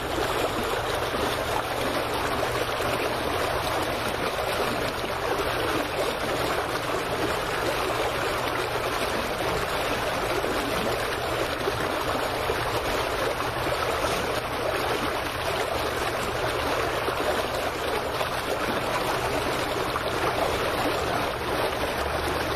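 Water lapping and washing against a dock just below the microphone, a steady watery hiss with no break. A faint steady low hum runs underneath.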